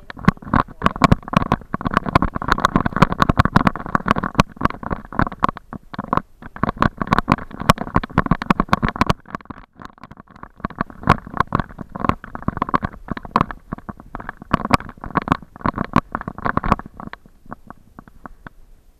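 Dense, irregular rumbling and knocking from a camera jostled in its mount while moving, thinning out near the end.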